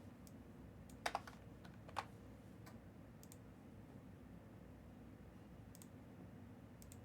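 Scattered computer keyboard clicks, with a few sharper clicks about a second and two seconds in, over a faint low hum.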